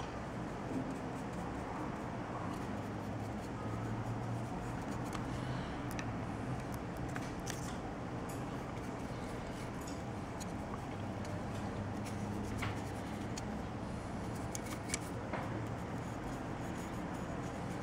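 Steady low room hum with a few faint clicks and light rustles of a paintbrush and a plastic miniature being handled on a paper-covered table.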